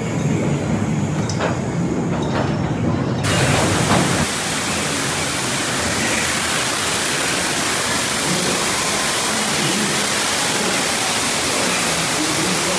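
Mine-train cars rumbling along the track with a few clicks, then, about three seconds in, a steady rush of falling water from a cave waterfall takes over.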